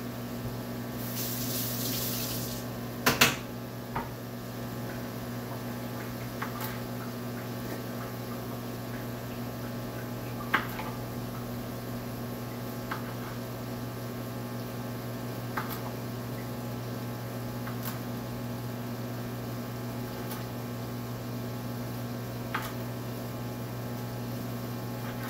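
Kitchen knife slicing a cucumber into rounds on a bamboo cutting board: single sharp knocks every two to three seconds over a steady low hum from a running microwave oven. A short hiss comes about a second in, and a loud double click about three seconds in is the loudest sound.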